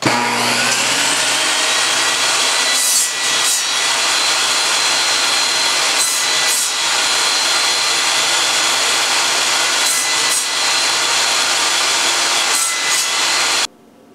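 Table saw running, its blade cutting a pine block in a crosscut sled, with the cut growing louder in pairs of passes about every three to four seconds. It cuts off suddenly near the end.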